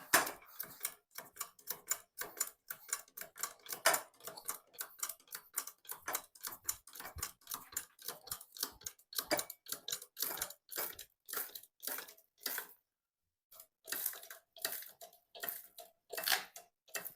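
Homemade bearing press being worked to push the axle out of a ceiling fan rotor, making a steady run of sharp metallic clicks, about three a second. The clicks break off briefly about thirteen seconds in.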